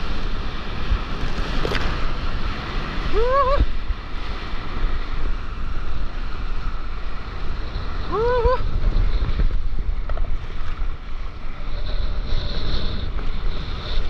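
Wind buffeting the microphone over the rush of breaking whitewater as a stand-up paddleboard rides a wave in toward the shore. Twice, about three and eight seconds in, a short call glides up in pitch and wavers.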